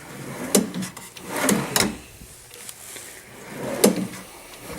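Desk keyboard shelf slid along its drawer slides, out and back twice, each run ending in a sharp wooden knock.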